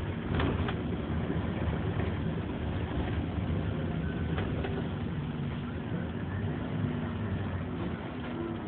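Scania OmniLink single-deck bus under way, heard from inside the saloon: steady engine and road noise, with a couple of sharp knocks about half a second in and another around four and a half seconds.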